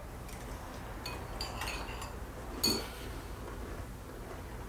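Spoons clinking lightly against cereal bowls: several short clinks in the first three seconds, the last of them the loudest.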